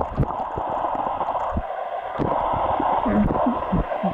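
Muffled lake water sloshing and gurgling around a camera microphone held underwater, with irregular low thumps and a few bubbling gurgles about three seconds in.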